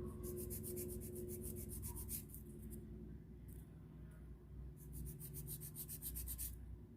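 Hand nail file rasping back and forth across a gel-coated fingernail in quick, even strokes: a run of strokes for about two seconds, a pause, then another run shortly before the end.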